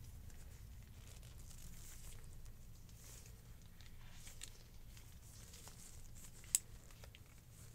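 Faint handling noise: gloved hands rustling while they bend the flexible metal gooseneck of a USB fan, with scattered light ticks and one sharp click near the end, over a steady low hum.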